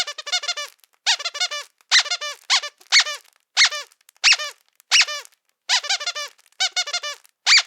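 A squeaky dog toy is squeezed again and again. It gives quick runs of short, high squeaks about once or twice a second, each squeak bending up and then down in pitch.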